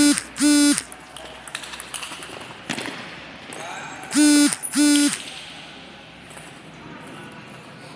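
A man's voice calling out two short, loud shouts in quick succession at the start, then two more just like them about four seconds later, each held on one pitch. A few faint clicks of the table tennis ball come in between.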